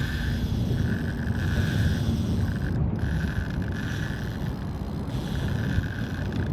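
Fishing reel whirring in short spurts as line is cranked in on a hooked fish, over a steady low rumble of wind on the microphone.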